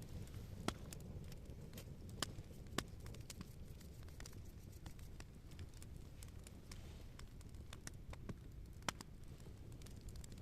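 Small wood campfire crackling, with sharp pops at irregular intervals, the strongest about a second in, twice between two and three seconds, and near the end, over a low steady rumble.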